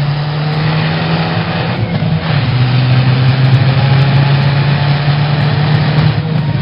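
Car engine running steadily, its pitch stepping down about two seconds in.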